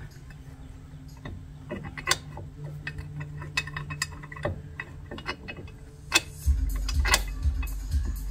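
Irregular metallic clicks and clinks of tools and suspension parts being handled, over background music; the music's low beat comes back about six and a half seconds in.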